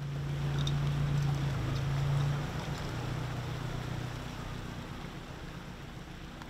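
Engine of a rescue craft moving through floodwater, running with a steady low hum that is loudest for the first couple of seconds and then eases off, over a constant rushing noise.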